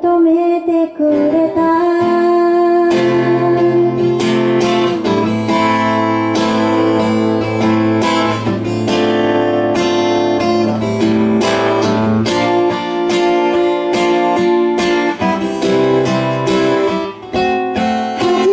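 Acoustic guitar strummed in a steady rhythm, accompanying a woman singing.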